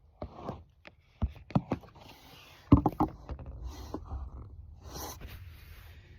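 Handling noise as things are moved about and set down: a string of sharp knocks and clatters, the loudest about three seconds in, followed by softer rustling.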